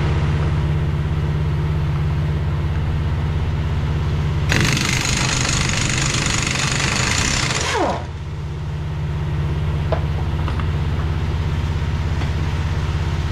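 Air compressor running steadily. About four and a half seconds in, a 3/4-inch air impact wrench hammers for about three seconds, then winds down with a falling pitch. It is working the 1 5/8-inch nut that holds a semi-truck driveshaft yoke.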